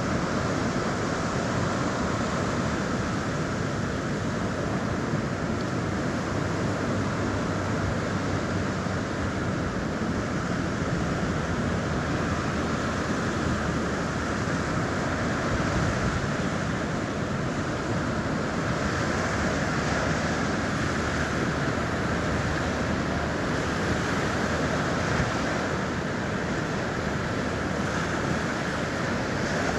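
Mediterranean sea surf washing onto the beach: a steady, unbroken rush of waves, with wind buffeting the microphone.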